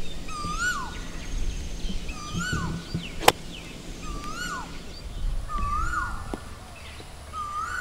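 A pitching wedge strikes a golf ball with one sharp click about three seconds in. Around it a bird repeats a whistled call every two seconds or so, each note rising and then swooping down.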